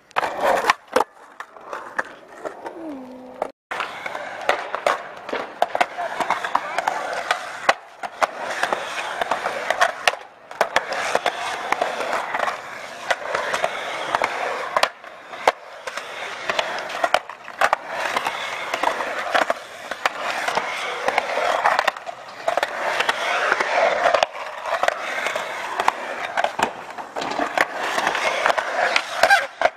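Skateboard wheels rolling on concrete, with repeated sharp clacks of the board popping and landing.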